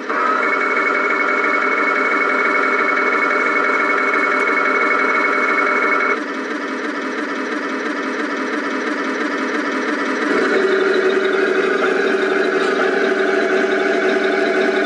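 Tamiya 1/16 Panther Ausf.G RC model tank with its engine sound idling, and a steady whine of the turret traversing over it for about the first six seconds. About ten seconds in, the engine sound steps up louder.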